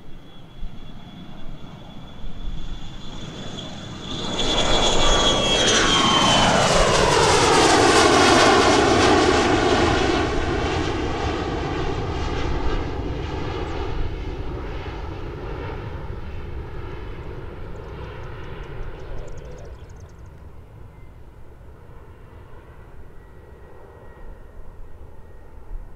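Twin rear-engined business jet taking off and climbing away at takeoff power. A high engine whine drops in pitch as it passes, and the jet roar swells to its loudest a few seconds in, then fades slowly as the aircraft climbs out.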